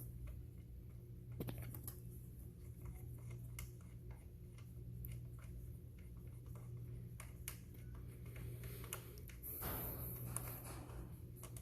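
Scattered light, irregular clicks and ticks of a socket wrench and small metal parts being handled while a PCV valve is unscrewed, over a steady low hum. A short rustling noise comes about ten seconds in.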